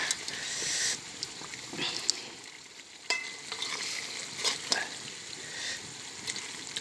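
Squirrel meat in a thick sauce sizzling in a wok while a metal spoon stirs it, with scrapes and several sharp clicks of the spoon against the pan.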